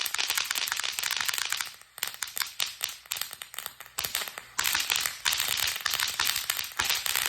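Consumer firework burning with a dense, rapid crackling of small pops and a hiss; the hiss fades a little before two seconds in and surges again about four and a half seconds in.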